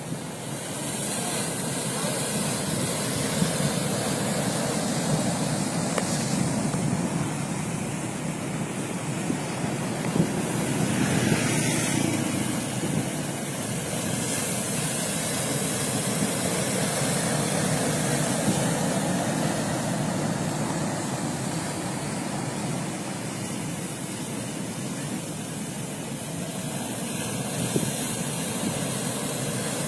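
Ocean surf breaking and washing against a concrete tetrapod breakwater: a steady rushing that swells and eases slowly as the waves come in.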